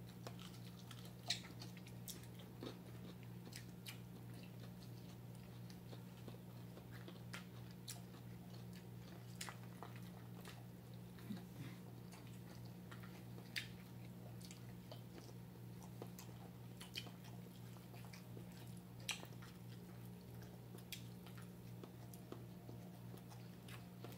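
Faint chewing and mouth smacks of people eating by hand, heard as scattered sharp clicks over a steady low hum.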